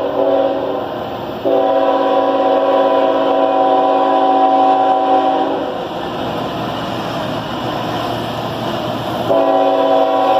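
CSX freight train's diesel locomotive blowing its air horn as it approaches. A blast ends just after the start, a long blast runs from about a second and a half in to about halfway, then comes a few seconds of engine and wheel noise, and the horn sounds again near the end.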